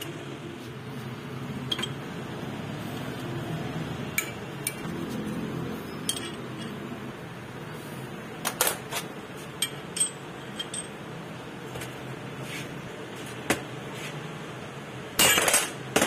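Scattered light metallic clinks and taps over a steady low hum, ending in a quick run of clinks near the end.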